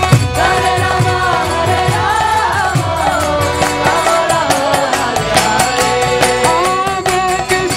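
Kirtan music: a sung devotional chant whose melody bends up and down over a steady drone, with a regular drumbeat and quick high clicks of percussion.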